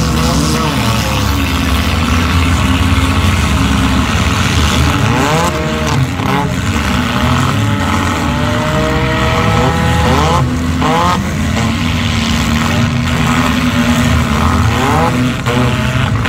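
Several demolition-derby cars' engines running and revving together in a pile-up, the revs rising sharply a few times.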